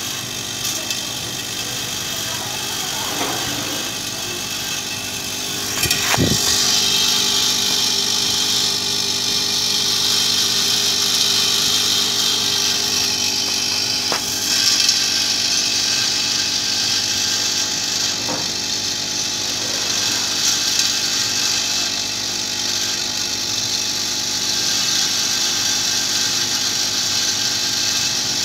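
Vibratory bowl feeder running with a steady buzz, steel washers chattering against the bowl and its track. The metallic rattle grows louder about six seconds in, with a sharp clack at that point.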